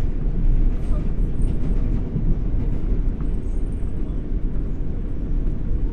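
New York City subway Q train running on the track, heard from inside the car: a steady low rumble of wheels and carriage, with faint high-pitched squeaks now and then.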